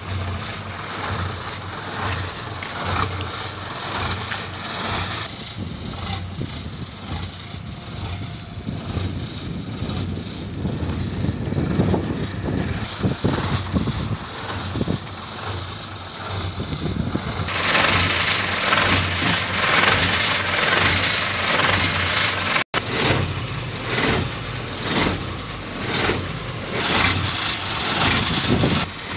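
Ashok Leyland 2214 cargo truck's diesel engine idling steadily.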